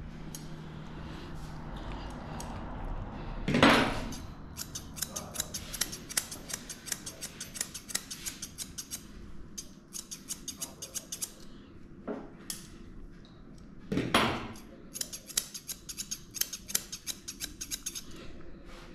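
Grooming scissors snipping the hair on a dog's head in quick runs of several cuts a second. Twice, about ten seconds apart, a louder short noise stands out.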